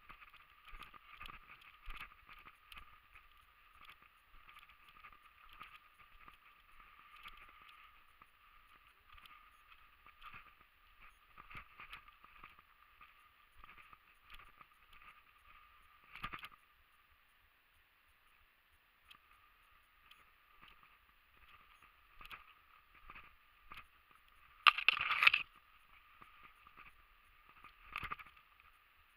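Footsteps and the rustle of clothing and gear of a person walking over a dirt track and through dry scrub and pine brush, with scattered small clicks and snaps. About 25 seconds in comes a short, much louder burst of noise.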